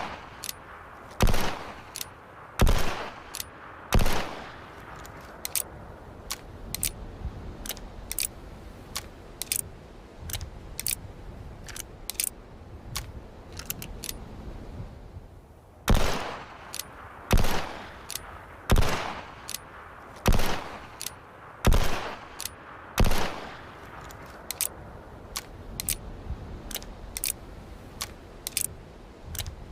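Single-action revolver firing: four shots about a second and a half apart at the start, then a stretch of many small metallic clicks, then six more shots at the same even pace from about halfway through, followed by more clicking.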